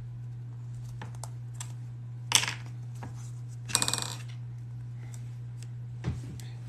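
Light clicks and taps of hands working leather and small metal hardware. A sharp knock comes a little past two seconds in, a short metallic rattle with a ringing tone about four seconds in, and a thump near the end, all over a steady low fan hum.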